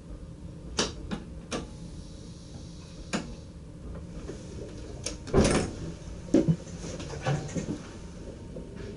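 Clicks and knocks of handling in a stopped train's driver's cab, about nine in all, the loudest a heavier thump about five and a half seconds in, over a steady low hum.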